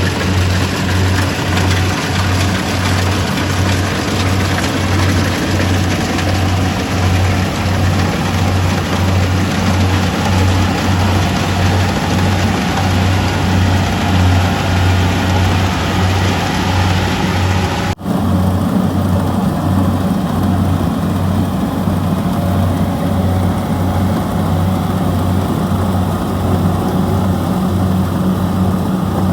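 Rice combine harvester (Kubota DC-70G) running steadily with a loud, evenly pulsing engine hum. The sound breaks off abruptly about two-thirds of the way through and resumes with a slightly different tone.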